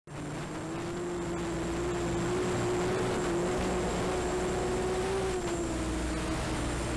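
Small FPV racing quadcopter in flight, its 1806 motors and 5045 propellers buzzing at a steady pitch that wavers slightly with throttle, over a constant hiss.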